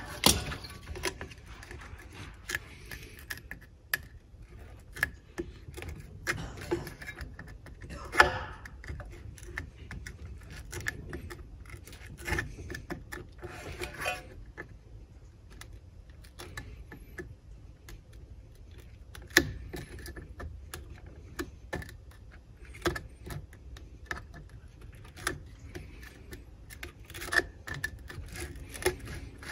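A blade scoring and scraping the worn velcro disc off the metal sanding pad of a Bona floor edger: irregular scratching and scraping with scattered sharp clicks and taps.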